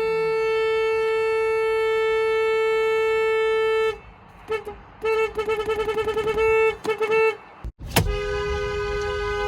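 Car horn held steadily for about four seconds, then tapped in short bursts: a couple of quick beeps, a fast string of short honks and two longer honks. After a sudden click near eight seconds, a different car horn sounds two close notes together, held steadily.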